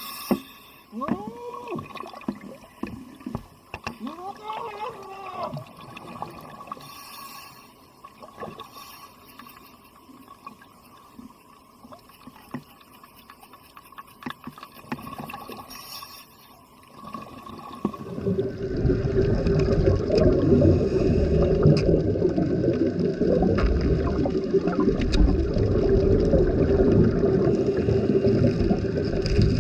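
Underwater water noise: gurgling and bubbling, with a few rising-and-falling tones at first, turning much louder and denser about eighteen seconds in.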